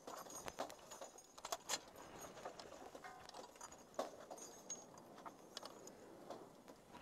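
Irregular metallic clinks and knocks from loose spent brass and gear rattling in a Humvee gun turret as the truck jolts along a rough dirt track, with a few sharper knocks about a second and a half in and again at four seconds.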